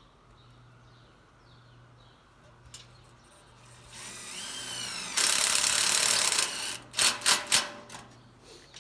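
Power drill driving a screw: the motor whines up, runs loud for about a second and a half, then three short bursts to seat the screw.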